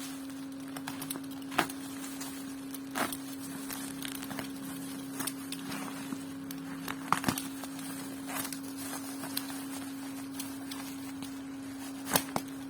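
Parcel packaging being handled and torn open: scattered crinkles, rustles and sharp clicks over a steady low hum.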